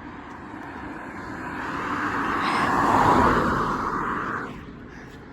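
A vehicle passing close by: road and engine noise swells to a peak about three seconds in, then fades away, with no horn sounded.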